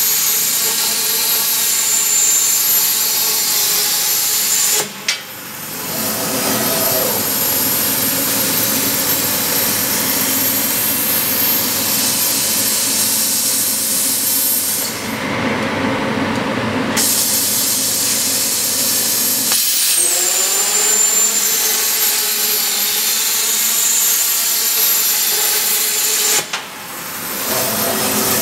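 Kasry CNC plasma cutting torch hissing loudly with a thin high whine as it cuts steel tube. The arc cuts out briefly about five seconds in and again near the end. In between, the hiss gives way for a couple of seconds to a lower mechanical sound from the machine.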